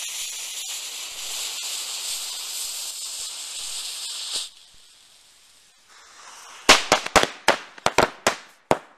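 Extended fuse hissing as it burns down for about four and a half seconds, then about two seconds of near quiet, then a pack of firecrackers duct-taped inside a small candy container going off in a rapid, uneven string of sharp bangs, about ten in two seconds.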